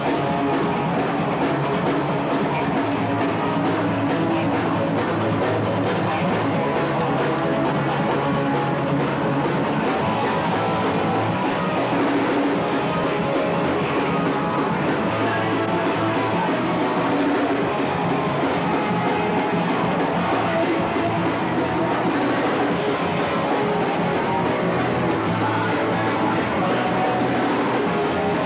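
Punk rock band playing live: distorted electric guitars, bass and a drum kit going together at full volume without a break.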